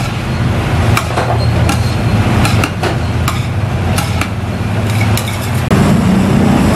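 Spatulas clinking and scraping on a flat steel griddle as yakisoba noodles are tossed: irregular sharp clinks over a steady low hum.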